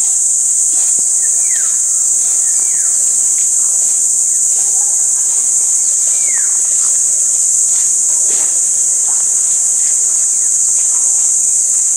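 Steady, loud, high-pitched drone of an insect chorus from the trees, unchanging throughout. A few short falling bird calls sound over it now and then.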